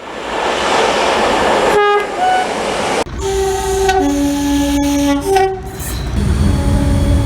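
British train horns sounding. A brief two-note toot about two seconds in over the rush of a passing train, then after a sudden cut a high note followed by a longer, lower note, the usual high-low pair of a UK two-tone horn, and more horn notes over train rumble near the end.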